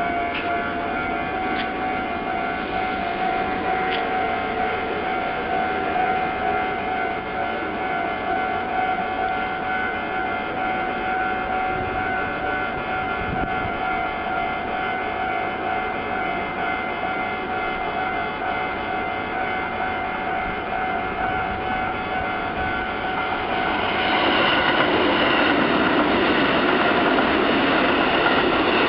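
Japanese level-crossing warning bell ringing steadily while the barriers are down. About 24 s in, a Kintetsu Nara Line train comes through and its wheel and running noise rises over the bell.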